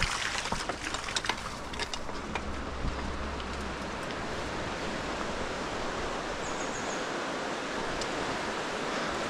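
Water rushing steadily at a waterwheel, with a few splashes in the first two seconds.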